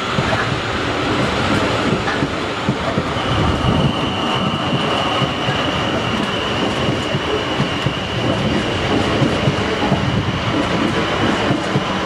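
South Western Railway Siemens Desiro electric multiple unit passing at low speed: steady rumble and clatter of wheels over the rails. A thin, steady high-pitched squeal comes in about three seconds in and holds.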